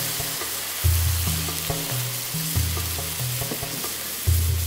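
Cola sizzling and bubbling in a hot wok around browned pork trotters and spices, just after it is poured in; a steady hiss. Soft background music with low bass notes plays underneath.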